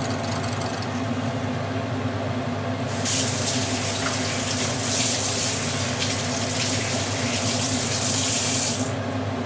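Thin pork loin fillets sizzling in hot oil in a frying pan, the sizzle growing stronger about three seconds in. A steady low hum runs underneath.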